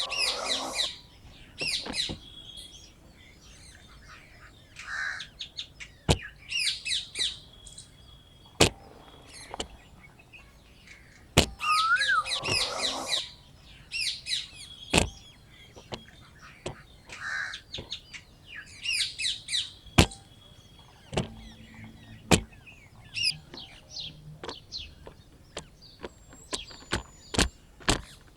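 Small birds chirping in short bursts of quick high notes every few seconds, with sharp clicks or knocks scattered among them.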